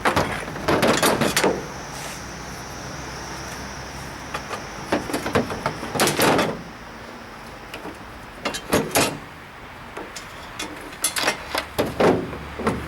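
Bicycle chain being cut with bolt cutters and pulled off the frame: several separate bursts of sharp metal clanks and rattles.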